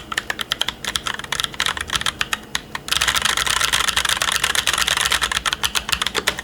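Typing on a custom mechanical keyboard with tactile Holy Red Panda switches (Halo stems in YOK Panda housings) under GMK Space Cadet keycaps in a TKC1800 case. The clicks come from the keys bottoming out, not from a click bar. About three seconds in, the keystrokes speed up into a fast, dense, louder flurry.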